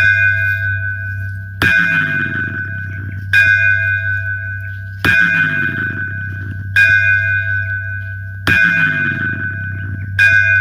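Bell-like chime tones played back through a JBL Flip 3 Bluetooth speaker: seven strikes at an even pace of about one every 1.7 seconds, each ringing out, over a steady low bass drone.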